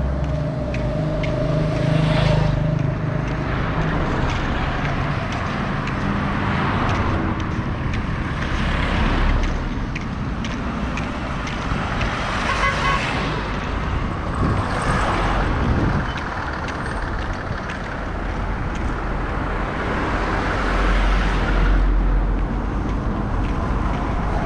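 Road traffic on a busy street: cars and trucks passing one after another over a steady hum of running engines.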